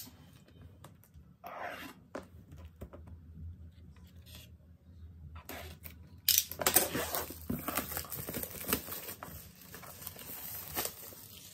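Clear plastic wrap being torn and pulled off a cardboard box, crinkling. It is faint at first and gets loud and busy about halfway through.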